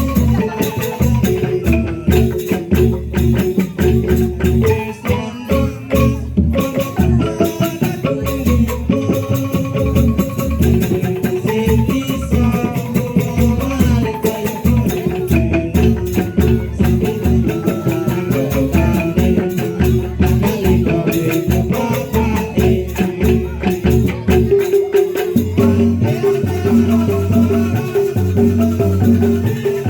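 Music: an ensemble with quick mallet-struck melody notes and rattling percussion over a steady low beat, the low part changing its pattern near the end.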